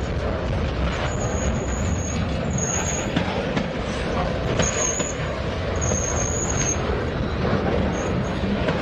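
Freight train cars rolling steadily on the rails, with a high-pitched wheel squeal that comes and goes about five times.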